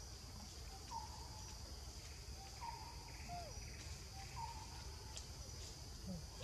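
Insects buzzing steadily in a high, even drone, with a faint short call repeating three times, about every second and a half.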